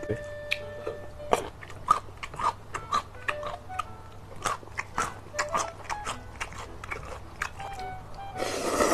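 Close-up eating sounds of instant ramyun noodles: wet chewing with many sharp lip smacks and clicks. A loud slurp of a long mouthful of noodles comes near the end.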